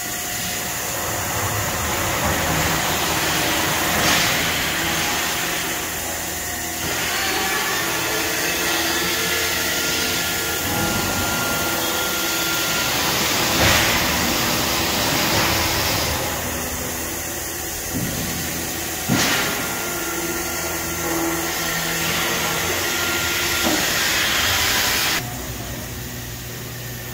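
Trumpf TruMatic L3030 CO2 laser cutting machine running: a loud, steady hiss with humming tones underneath and a few sharp knocks. The hiss cuts off near the end.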